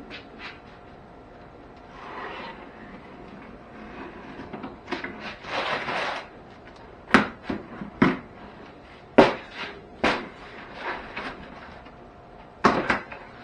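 A cardboard shipping box being opened by hand. Packing tape is pulled off its seam with a ripping sound about five to six seconds in, then come several sharp knocks and thumps as the cardboard flaps are folded back and handled.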